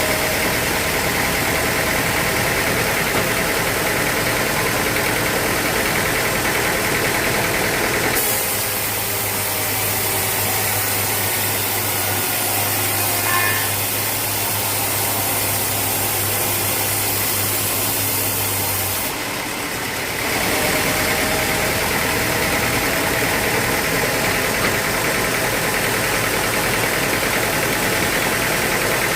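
Sawmill machinery running steadily: a motor drone with hissing noise over it. The sound changes abruptly about eight seconds in, when a steady low hum sets in, and changes back around twenty seconds.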